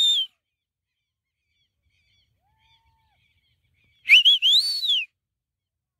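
A person whistling loudly. There is a short rising-and-falling whistle at the start. About four seconds in come a few quick chirped notes and then a longer whistle that rises and falls again.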